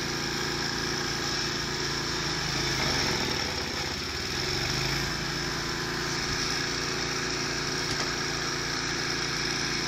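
Vehicle engines running steadily in the snowy street, with a low rumble that shifts in pitch about three to five seconds in.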